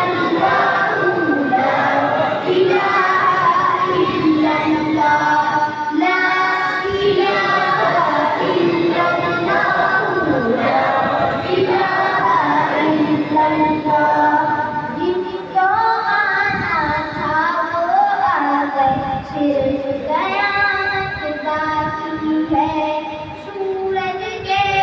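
A boy singing a naat, an Urdu devotional poem, solo into a microphone, his voice carried over a PA system. He holds and bends long melodic lines without instruments.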